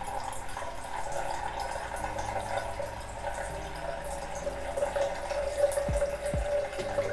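Liquid trickling steadily in a thin stream from one glass beaker into another, as the spent aqua regia is decanted off settled brown gold precipitate. Background music comes in under it, with low drum beats starting about six seconds in.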